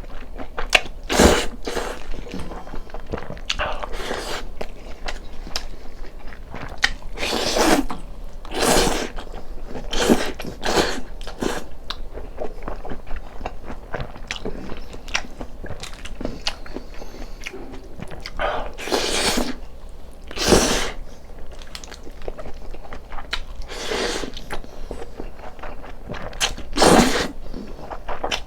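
Close-miked eating: a person chewing and biting food, with irregular mouth noises and a louder burst every few seconds.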